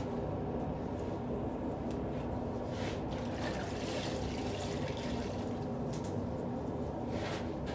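A sponge rinsed in a bucket of water and wrung out, water splashing and dripping back into the bucket in a few surges, about three seconds in, around six seconds and again near the end. A steady low rumble runs underneath.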